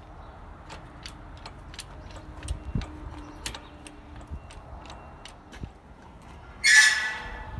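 An engine crane being wheeled over rough ground with a Mercedes OM605 diesel engine hanging from it: irregular sharp clicks and ticks, then a loud, brief, high squeal near the end.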